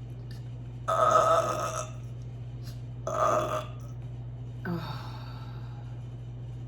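A woman burping: a loud burp about a second long, a shorter one around three seconds in, and a fainter short one around five seconds in, with a steady low hum underneath.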